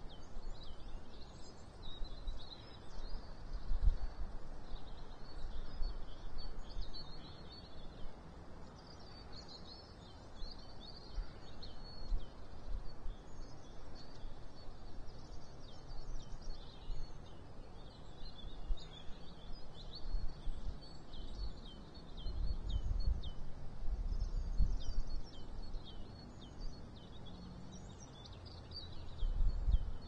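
Small songbirds chirping and trilling almost continuously, with short high notes. Low rumbles come and go under them, strongest about four seconds in, for a few seconds past the two-thirds mark, and near the end.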